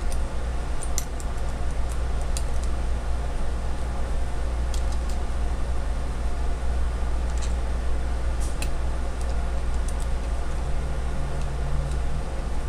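A steady low hum, with faint, scattered light clicks as a steel Allen key is turned in the end-cap bolts of a spool valve to unthread them.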